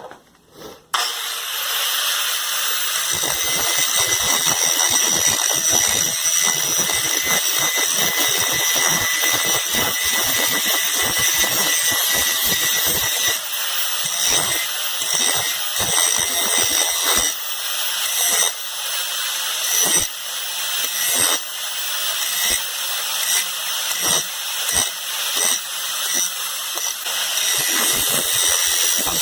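Grinder with a coarse grinding disc starting up about a second in, then grinding the profile of a forged steel knife blade: a steady high whine under a rasping hiss that rises and dips as the disc bites the metal.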